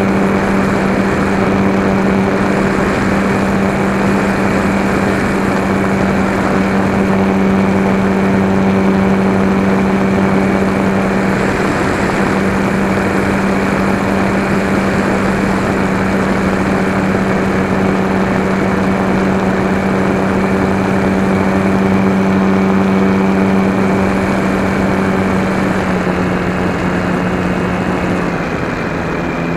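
Sig Senior radio-controlled model airplane's motor and propeller running steadily at a constant pitch, heard close up from a camera mounted on the plane, over a steady rush of air. Near the end the pitch steps down slightly twice and the sound gets a little quieter as the throttle is eased back.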